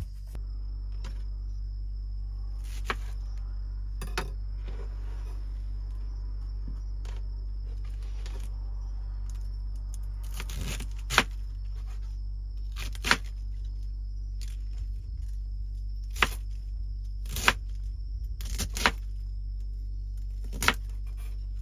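Kitchen knife cutting cabbage and enoki mushrooms on a wooden cutting board: slow, irregular knocks of the blade against the board, with softer crunching and tearing of the leaves between them, over a steady low hum.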